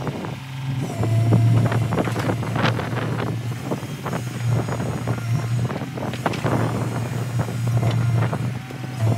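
L&T-Komatsu PC200 hydraulic excavator's diesel engine running with a steady low drone that dips briefly about half a second in, as the machine swings round and lowers its boom and bucket. Scattered knocks and rattles run through it.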